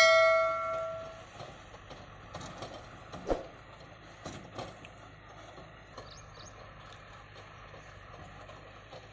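A bell-like notification chime rings out and fades over about a second, followed by faint scattered clicks and scrapes of a plastic toy dump truck being pushed over dirt, with one knock about three seconds in.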